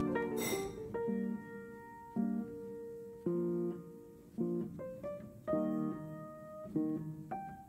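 Background music: gentle plucked acoustic guitar, a new note or chord about once a second, each ringing out and fading.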